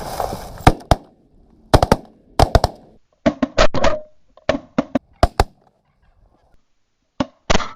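Rapid volleys of shotgun shots from several hunters firing together, about twenty shots in quick clusters with short pauses between, the last pair near the end.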